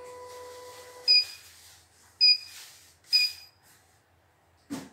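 Three short, high electronic beeps about a second apart from the CNY E900 embroidery machine's touchscreen control panel as its keys are pressed to start a test. A steady hum stops just before the first beep, and a single sharp knock comes near the end.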